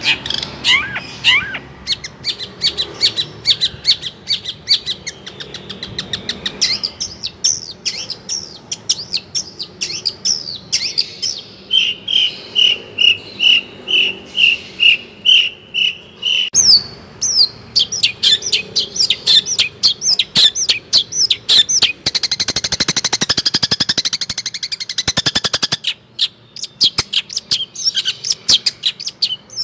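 Long-tailed shrike (cendet) singing a fast, varied song of sharp chirps and pitch glides, with a run of about a dozen evenly repeated whistled notes around the middle and a dense rapid trill near the end.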